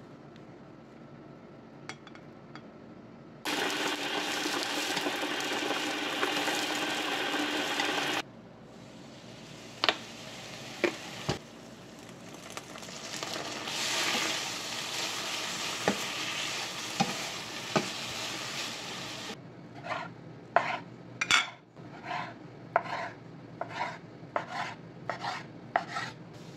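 Food sizzling in a hot nonstick frying pan, loud and steady for a few seconds, then softer with a few clicks and scrapes of a plastic spatula. Near the end, a knife chopping through thin egg omelette onto a wooden cutting board, about a dozen strokes.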